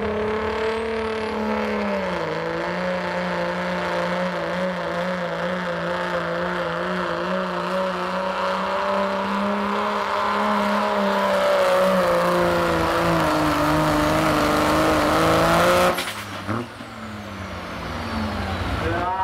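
Dodge Ram's Cummins diesel engine held at full throttle under load while pulling the sled, its pitch wavering and sagging late in the pull. It cuts off abruptly about three seconds before the end, leaving a fading, falling turbo whistle.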